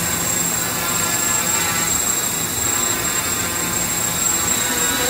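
Quadcopter's four Emax brushless motors and 10-inch propellers running steadily as it hovers low, a constant buzzing whir with a thin high whine above it.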